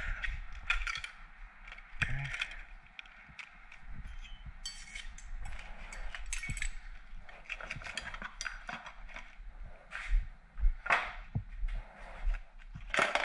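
Small metal parts and tools being handled and put away: an irregular scatter of light clicks, taps and clinks.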